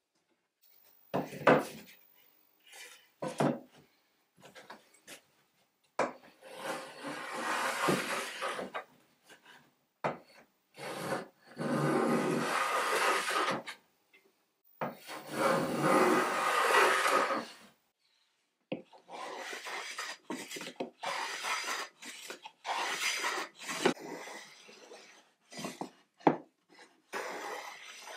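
Small hand plane cutting a chamfer along the edge of softwood frame strips, after a few wooden knocks as the strips are handled. Three long planing strokes of about three seconds each come first, then a run of shorter, quicker strokes in the second half.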